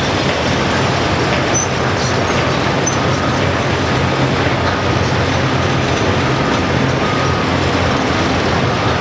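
Komatsu PC228 hydraulic excavator's diesel engine running steadily under working load, a constant low drone under a noisy mechanical hiss.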